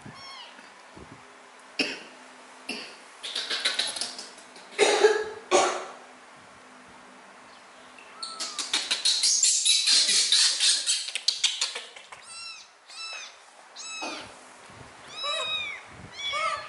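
Kitten mewing: repeated short, high, arching cries. About eight seconds in, a louder stretch of rapid, harsh sound lasts for about four seconds.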